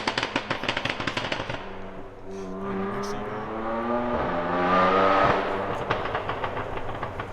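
BMW M4 twin-turbo inline-six through an FI Frequency Intelligence exhaust with a burble tune: a rapid string of crackles and pops on the overrun, then the engine revving up under acceleration, its pitch rising for about three seconds before cutting off. Another burst of pops follows as it lifts off.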